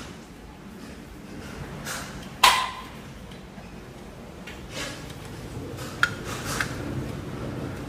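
A few knocks and clicks over a low steady background noise; the loudest is a sharp knock with a brief ring about two and a half seconds in.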